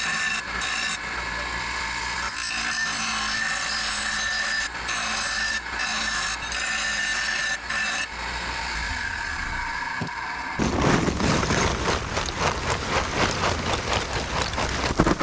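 A steady hum, then about ten seconds in a fast, rhythmic scraping of a hand tool worked back and forth over metal starts and gets louder.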